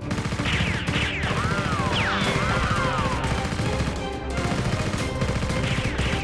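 Machine-gun sound effect dubbed over Nerf blaster fire: a fast, continuous rattle of shots with a short break about four seconds in, over background music. Whistling sweeps that fall and rise again run through the first half.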